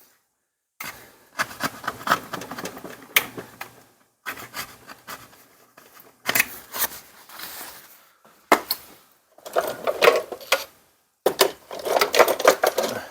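Small metal engine parts and hand tools clinking, knocking and scraping as they are handled on a workbench, in several short stretches broken by dead silences.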